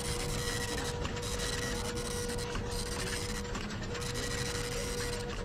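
Office printer running, a steady mechanical whine broken into passes about once a second over a noisy whirring bed.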